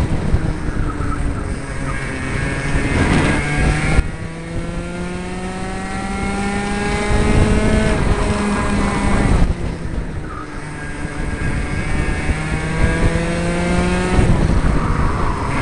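60cc two-stroke Mini kart engine running at racing pace. Its pitch climbs steadily as it accelerates, then drops sharply when the throttle is lifted for corners, about 4 s and again about 9.5 s in.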